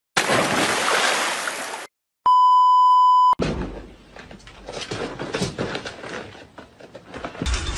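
A steady electronic beep tone, one even pitch held for about a second, comes just over two seconds in and is the loudest sound. Before it, a burst of water splashing; after it, irregular scratchy rustling and tapping.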